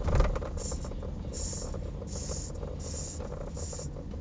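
Car cabin noise while driving: steady low road and engine rumble, with one thump at the start and a soft hiss repeating about every three-quarters of a second.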